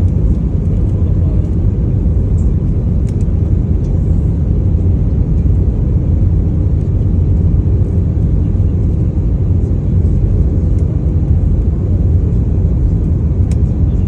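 Airliner cabin noise: the steady low rumble of the jet engines and airflow heard from inside the passenger cabin.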